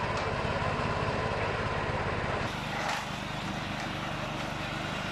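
An engine running steadily with a low throb. The sound changes at a cut about halfway through but keeps running.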